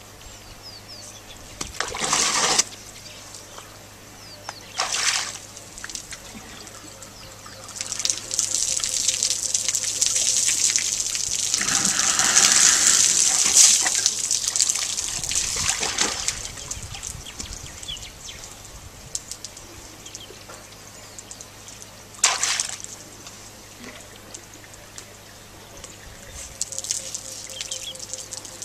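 An African elephant drinking from a swimming pool: water trickling and gushing as its trunk draws it up and empties it into its mouth. Short splashes come about two and five seconds in and again around twenty-two seconds, with a longer, louder stretch of running water from about eight to sixteen seconds.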